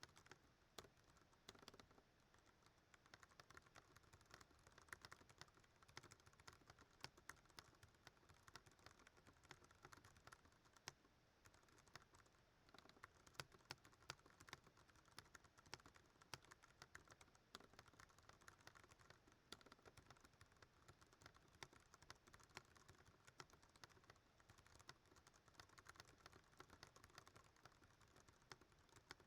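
Fast touch-typing on a Ducky One 2 Mini mechanical keyboard with Cherry MX Brown switches: a rapid, unbroken stream of quiet key clicks at a typing-test pace of around 100 words a minute.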